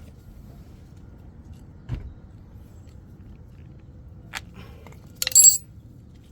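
Metal tools or brake parts being handled: a dull knock about two seconds in, a small tick, then a short, loud metallic clatter that rings near the end.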